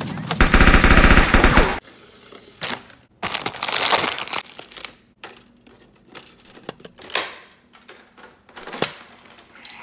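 A rapid-fire burst of evenly spaced shots lasting about a second and a half, like a full-auto blaster, followed by scattered clicks, a brief rustle and a few single knocks.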